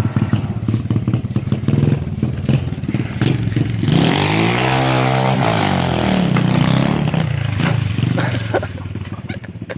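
A 125cc pit bike engine running, then revving up sharply and dropping back again about four to five seconds in. The engine fades away near the end.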